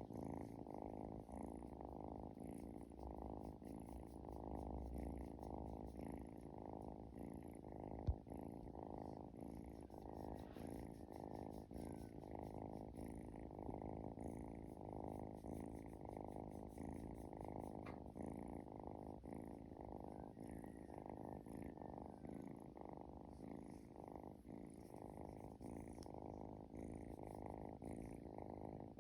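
Domestic cat snoring: a low, continuous fine rattle. A single sharp click comes about eight seconds in.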